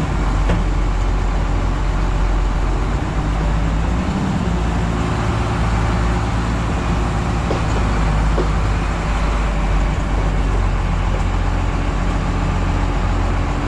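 A vehicle driving: a steady engine drone with road noise, the engine note shifting slightly about four seconds in.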